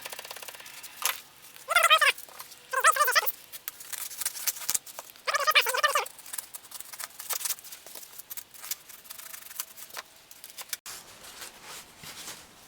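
Plastic squealing in three short, wavering squeaks as a blade is drawn across it to score it, among light clicks and scraping from handling the piece.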